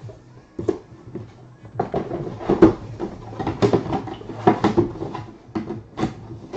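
Handling noise from packaging: a run of irregular knocks, taps and rustles as a plastic display case and a cardboard box are moved about and set down on a table.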